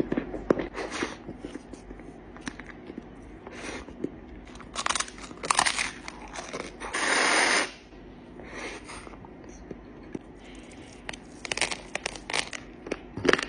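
Close-up eating sounds: wet licking and smacking on a cream-topped wafer cone and crunching bites of the crisp cone, in irregular clicks and crackles. About seven seconds in there is a longer, louder crunching burst.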